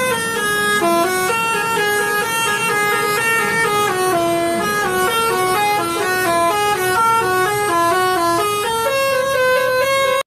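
Bus telolet horn, a set of air-horn trumpets sounding several notes at once, playing a fast stepped melody that changes pitch a few times a second. It cuts off abruptly at the end.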